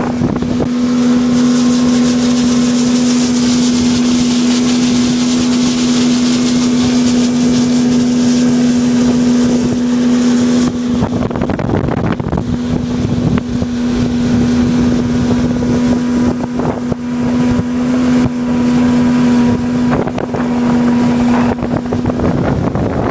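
Bass boat's outboard motor running steadily at speed, one held engine tone, with wind and rushing water hiss over it. The hiss eases off about halfway through, and the engine tone drops out briefly twice.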